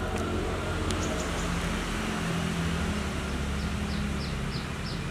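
A steady low rumble of distant traffic, with a faint engine hum in the middle. Near the end there is a run of about four short, high chirps.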